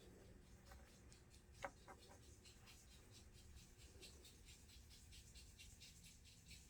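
Near silence with faint, rhythmic scratching repeating a few times a second, and one small click about one and a half seconds in.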